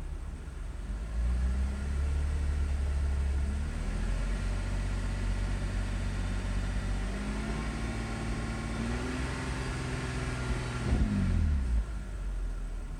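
BMW E90 330i's straight-six engine revved twice from idle, each time held at raised revs for a few seconds before dropping back, the second drop sudden, near the end. The owner hears a bad engine noise from it after a fast half-hour drive.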